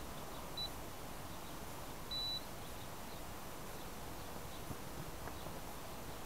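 Two high-pitched electronic beeps over steady outdoor hiss, with the quadcopter's motors stopped. The first beep is very short, about half a second in; the second, about a third of a second long, comes a second and a half later. The beeps come from a small buzzer on the grounded HobbyKing FPV250 quadcopter.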